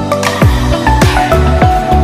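Electronic background music with a steady kick-drum beat and sustained synth notes.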